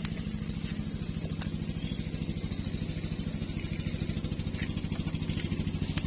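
Small boat engine idling steadily with a fast, even chug.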